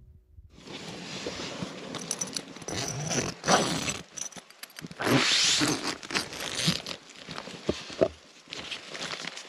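Tent door zipper being pulled open in several strokes of differing length, the longest a little past the middle, with the nylon tent fabric rustling.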